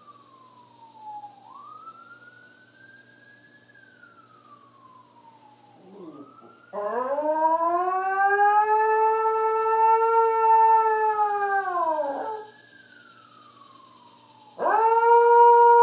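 Small long-haired dog howling along with a faint siren that wails slowly up and down. One long howl rises, holds for about six seconds and falls off in the middle. A second howl starts near the end.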